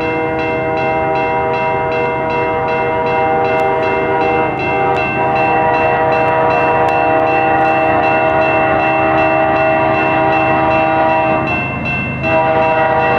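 Diesel locomotive horn sounding one long chord-like blast, let off briefly near the end and then sounded again as the train nears the crossing. The level crossing bell rings steadily underneath, about two and a half strokes a second.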